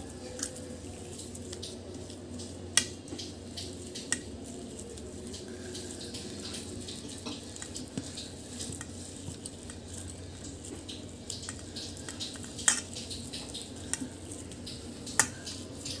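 Boiled potatoes being squashed and mashed by hand in a steel bowl, with a few sharp clicks of fingers against the steel now and then over a steady background hum.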